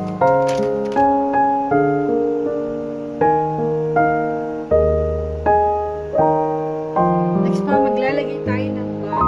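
Background piano music: a slow, even melody of struck notes, each fading before the next.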